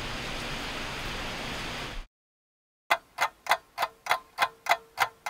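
Steady background hiss cuts off abruptly about two seconds in. After a short silence a ticking clock starts, with crisp, evenly spaced ticks about three and a half a second, used as a time-passing sound effect.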